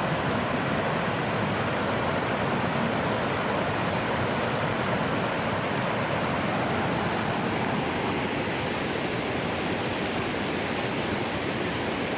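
Steady rushing of water over a series of small drops and rapids in a river.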